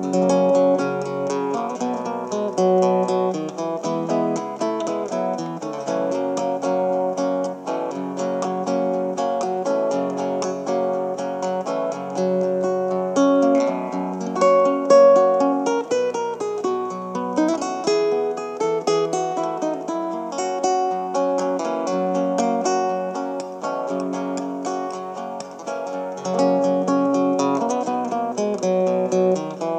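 Background music: a plucked acoustic guitar instrumental, with no singing.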